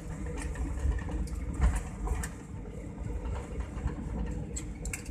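Jet airliner cabin noise as the plane rolls along the runway after landing: a steady low rumble of engines and wheels, with a few sharp rattles and knocks, the loudest about a second and a half in.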